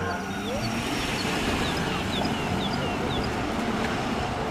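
Steady city street traffic noise as an ambulance drives along the road, with no siren wailing. Faint short high chirps sound over it through the first few seconds.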